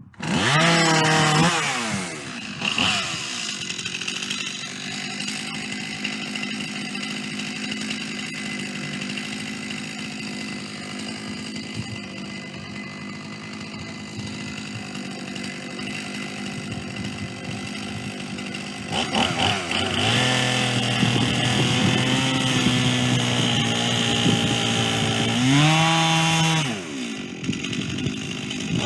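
Chainsaw in a chainsaw mill, running under load as it rips a white pine log lengthwise. It starts abruptly and runs throughout, its engine pitch shifting several times, with a brief drop and recovery in speed near the end.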